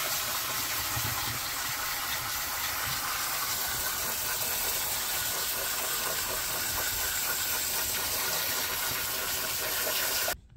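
Kitchen sink pull-out sprayer running, water hissing steadily as it rinses toothpaste out of a snorkel mask; the spray cuts off suddenly near the end.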